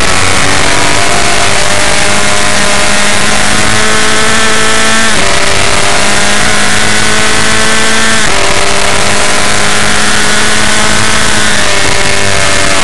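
F1600 open-wheel race car's engine heard from onboard, pulling hard up through the gears: the engine note climbs, drops sharply at upshifts about five and eight seconds in, and falls away near the end as the car slows for a corner. A heavy rush of wind and road noise sits under the engine.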